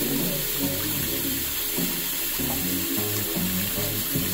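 Faucet water running into a stainless steel sink, with a Raycon Everyday Speaker held under the stream while it plays a song with a stepping bass line.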